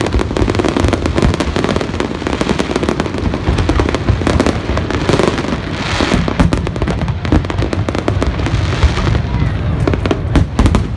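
Aerial fireworks going off in a dense barrage: rapid cracks and pops over a continuous deep booming rumble, with a hissing rush of crackle about halfway through.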